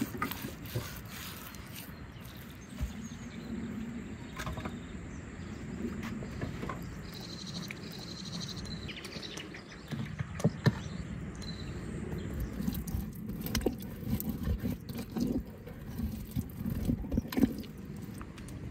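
Hands rubbing spice marinade into a whole raw lamb carcass on a wooden table: soft wet rubbing with scattered slaps and knocks, more in the second half, over a steady low rumble.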